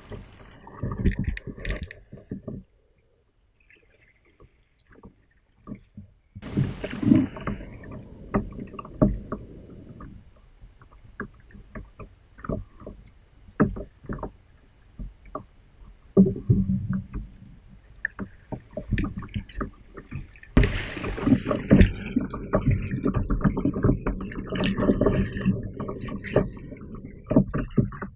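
Water lapping and slapping against the hull of a plastic sit-on fishing kayak (a Viking Profish Reload), with short knocks and a low rumble. The sound drops out for a few seconds near the start, then picks up again, with a hiss added about two-thirds of the way through.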